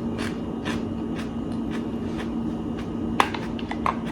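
Someone chewing a mouthful of fresh pico de gallo (diced tomato, onion and pepper) with soft crunches about twice a second. Sharper clicks come about three seconds in, over a steady low hum.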